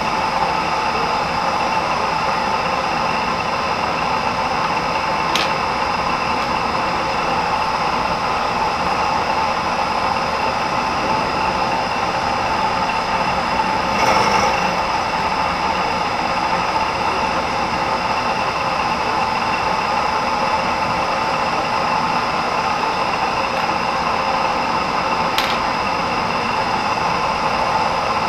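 Vertical milling machine running steadily, its spindle and motor giving an even whine with several fixed tones. Three brief clicks come through it, the one about halfway a little louder.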